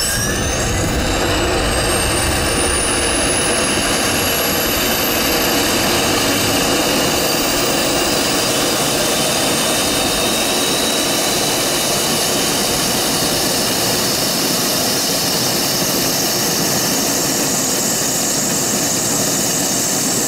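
Corporate jet's auxiliary power unit, a small gas turbine, spooling up on start: a whine that climbs in pitch over the first several seconds and then holds steady as the unit nears full speed. This is a successful light-off, the APU accelerating normally to operating speed.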